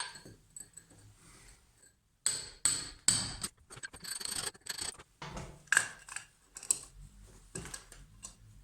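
Hand-held hammer knocking at an uneven pace, about eight sharp strikes, after a couple of seconds of quieter scraping and light taps.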